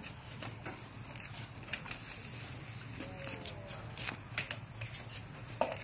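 A wood-fired ceramic kiln, opened at firing heat of about 1250 °C, crackling and ticking as its red-hot walls and burning embers meet the open air. A soft rushing hiss swells about two seconds in.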